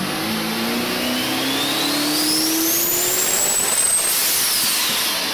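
A car engine accelerating hard, its note stepping up over the first second as if through gear changes and then climbing steadily. A high whine rises with it, then drops away about four seconds in, like a car passing by.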